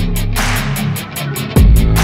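Background music: an electronic track with a heavy bass beat and a rhythmic hi-hat, the bass dropping out briefly about a second and a half in before the beat comes back.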